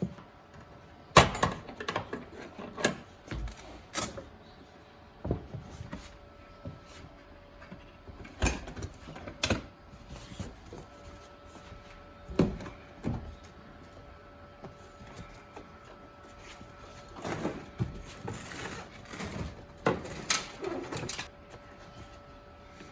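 Scattered clunks, clicks and latch knocks as the engine compartment of a Toyota Hiace van is opened by hand. The loudest knock comes about a second in, with a dozen or so more spread through the rest.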